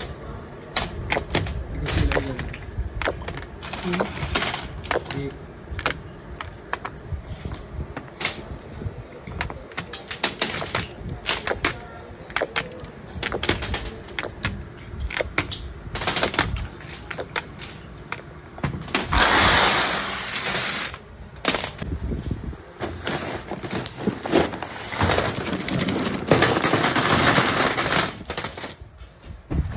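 Factory machinery clattering: rapid, irregular clicks and knocks of hard parts, with two longer hissing stretches, one past the middle and one toward the end.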